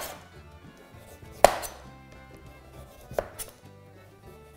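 Kitchen knife cutting through butternut squash and knocking on a wooden chopping board: one sharp knock about a second and a half in, then two lighter ones near the end.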